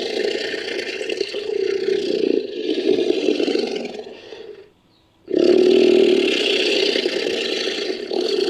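Made-up Shringasaurus creature call sound effect. One long, rough, growling call fades out about four and a half seconds in, and after a brief silence a second long call starts abruptly.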